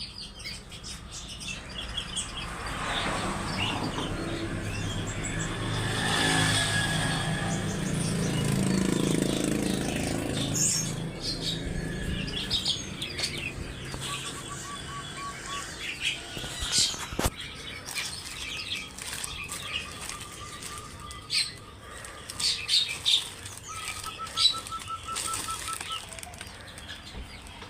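Small caged birds chirping and fluttering their wings. A short repeated trill recurs several times in the second half, and there is a louder rushing noise in the first third and a single sharp click partway through.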